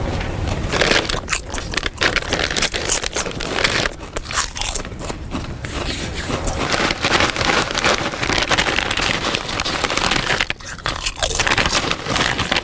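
Loud crunching and chewing of crunchy food, a dense rapid crackle of bites with no pause.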